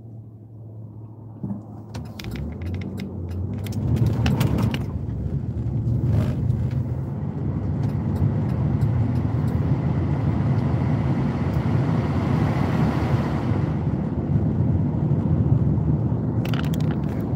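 Road and engine noise inside a moving SUV's cabin: a steady low rumble that builds over the first four seconds, then holds. Scattered light clicks and rattles come between about two and five seconds in, once around six seconds, and again near the end.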